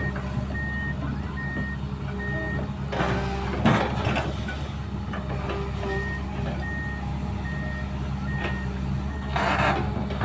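Excavator's diesel engine running steadily while its warning alarm beeps at an even pace, a little under twice a second; the beeping pauses for a few seconds in the middle and then resumes. Occasional clanks and rattles of the machine come through over the engine.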